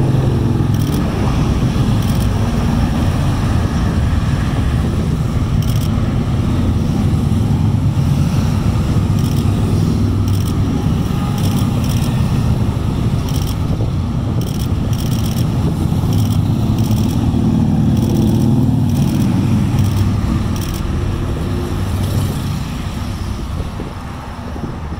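A procession of touring motorcycles passing below one after another, their engines running in a steady, loud stream. The sound fades over the last few seconds as the last bikes go by and cars follow.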